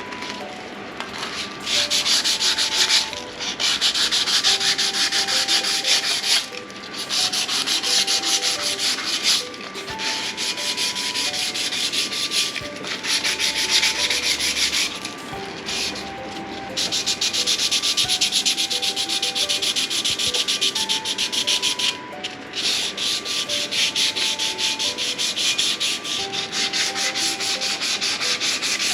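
Sandpaper rubbed by hand over the face of a cast-iron brake rotor in quick back-and-forth strokes, scuffing off old pad compound and glaze. It comes in runs of several seconds broken by short pauses.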